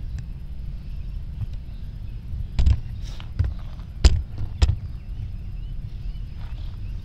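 A few sharp knocks over a steady low rumble, four in quick succession around the middle, the third the loudest.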